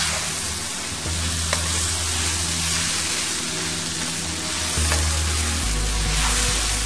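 Chowmein noodles and vegetables sizzling in a steel frying pan while they are tossed with a metal spatula. The spatula knocks against the pan a few times.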